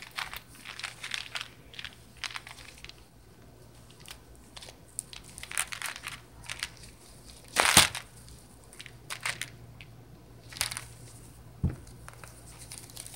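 Crinkling and rustling of a small handmade bag filled with wrapped candy as it is squeezed and handled, in irregular bursts. The loudest crunch comes a little past halfway, and there is a soft knock near the end.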